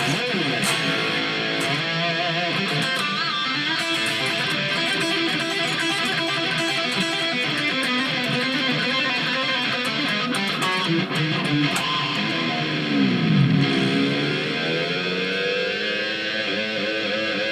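Electric rock guitar being practised: held notes and chords, with one note diving down in pitch and coming back up about thirteen seconds in.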